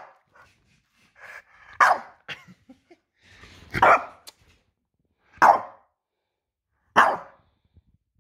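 French bulldog barking: four loud, short barks about a second and a half apart, with a few softer sounds between the first three.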